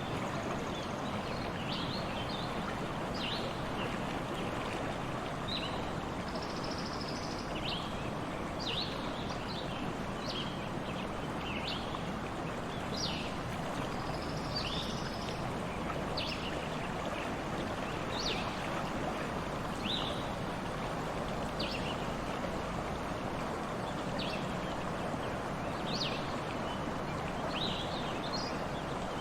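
Stream water running steadily, with a bird giving short, high chirps about once a second over it.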